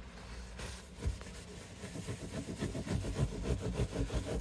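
A rag wetted with lighter fluid rubbed briskly over a guitar's finish, wiping off buffing compound: a quick run of scrubbing strokes starting about a second in and growing louder.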